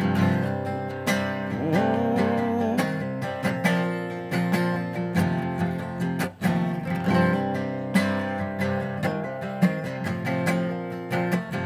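Steel-string acoustic guitar strummed and picked, playing a song's intro with chords ringing in a steady rhythm.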